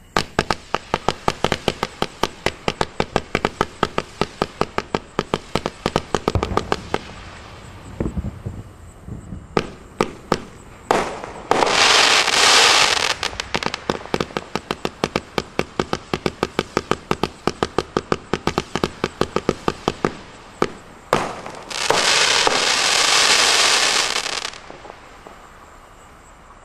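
Winda 'Wishing Star' 86-shot consumer fireworks cake firing: a rapid string of sharp launch pops, about four to five a second, thinning out briefly near the tenth second. The pops are broken twice, around the middle and near the end, by a couple of seconds of dense, loud hissing. The cake falls silent shortly before the end.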